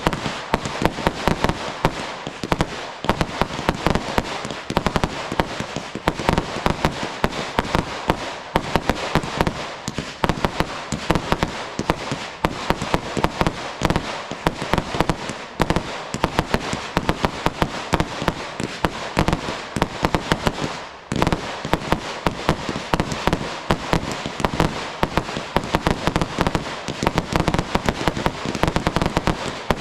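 Fireworks display: a dense, continuous barrage of rapid bangs and crackling, easing briefly about two-thirds of the way through before resuming.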